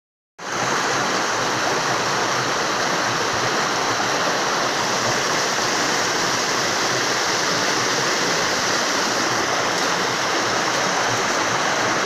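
Small forest stream running, a steady, continuous rush of water that cuts in just after the start.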